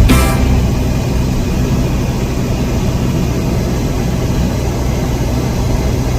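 A car driving: a steady low rumble of engine and road noise. Background music cuts off just at the start.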